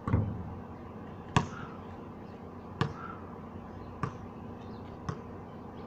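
A basketball lands with a thud and a short low ring, then bounces on the concrete court five times, each bounce quieter and coming sooner than the last as the ball settles.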